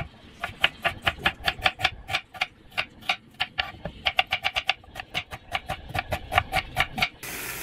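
Kitchen knife slicing a red onion on a wooden cutting board: a quick, even run of knife taps on the board, several a second, that stops just before the end.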